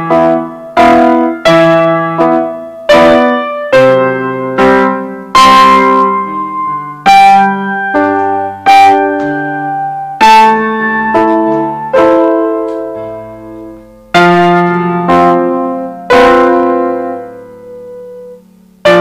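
Digital piano playing a slow waltz, read at sight: chords and melody notes struck about every two-thirds of a second, each left to ring and fade. Near the end one chord is held and dies away before a new one is struck.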